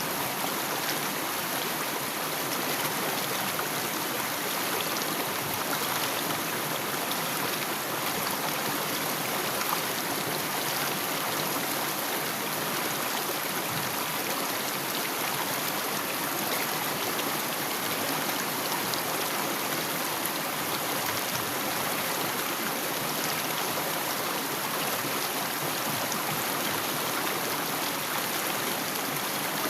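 Water of a mountain stream flowing and trickling over rocks, a steady, even rush without let-up.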